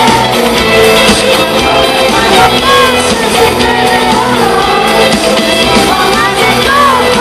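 Loud live pop band playing in an arena, with a lead singer's voice over guitar, bass and drums.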